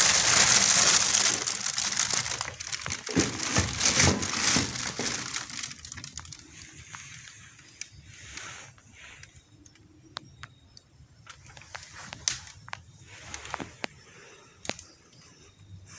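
Loud rustling and crinkling, as of material being handled and rummaged through, for the first few seconds, then fading into scattered clicks and brief rustles.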